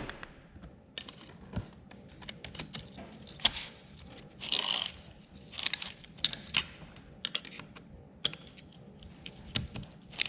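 Small metal engine parts and hand tools clicking, tapping and scraping against each other in irregular light knocks, with one longer scrape a little before the middle, during piston and ring assembly.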